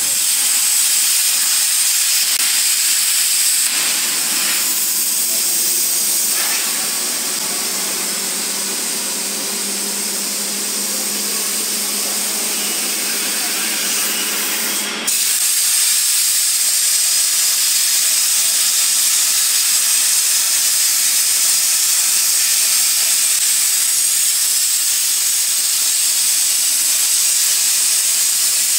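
CNC plasma cutting torch hissing steadily as it cuts through a steel beam, with a low steady hum underneath for a while in the first half.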